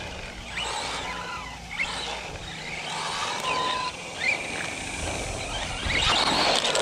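Arrma Granite RC monster truck's brushless motor (Hobbywing Max10 combo) whining as it drives on asphalt, its pitch rising and falling repeatedly with the throttle. A louder rough rush of tire-on-asphalt noise comes near the end.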